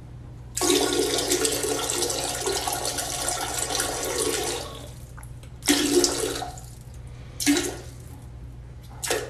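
Running water: a loud rush of about four seconds that stops, then two shorter gushes and a brief one near the end, over a steady low hum.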